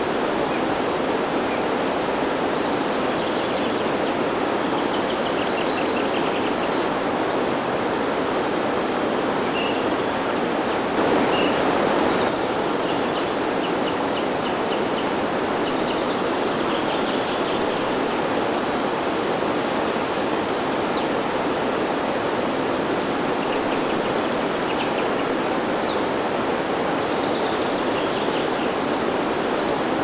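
Mountain stream rushing steadily over a small waterfall onto rocks, with small birds chirping and trilling now and then above the water noise.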